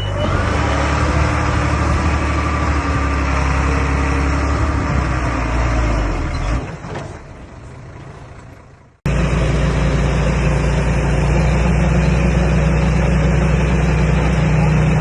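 Komatsu D21A bulldozer's diesel engine running steadily. About two-thirds of the way in it fades away, then cuts back in suddenly at full level and runs on steadily.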